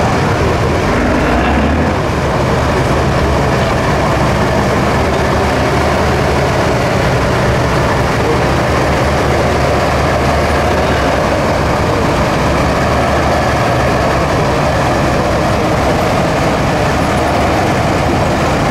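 Tatra 8x8 trial truck's diesel engine running steadily and loud under load as the truck crawls through deep mud.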